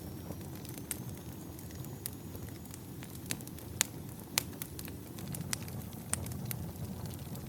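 Wood campfire burning: a steady low rush of flame with scattered sharp crackles and pops from the burning logs, two of them louder about halfway through.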